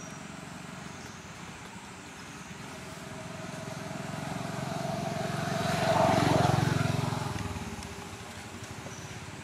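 A motor vehicle passing by: its engine grows louder over a few seconds, is loudest about six seconds in, then fades away.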